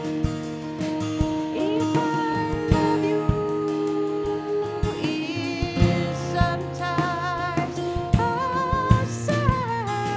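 Live acoustic band music: two acoustic guitars picked and strummed over a drum kit keeping a steady beat, with a wavering melody line over them in the second half.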